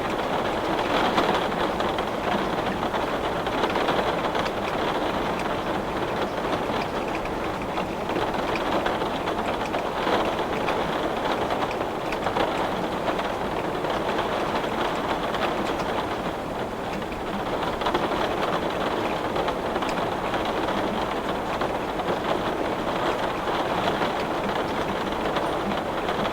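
Heavy rain falling on glass: a steady, dense hiss of drops with many small ticks of single drops striking the pane.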